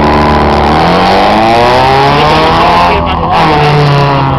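Petrol engine fired by a distributor, running and revved: its pitch climbs and falls a couple of times, then settles lower near the end.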